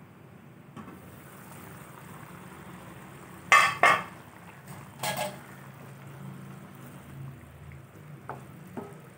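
Stainless steel pot lid handled and set down with two sharp metallic clanks about three and a half seconds in, then a smaller clatter a second later. Under it the kuzhambu in the kadai bubbles as it cooks, and near the end a wooden spatula stirs it with light scrapes and taps.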